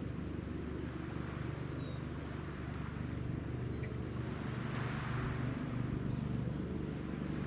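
A steady low engine hum, with a soft hiss that swells about five seconds in and a few faint high chirps.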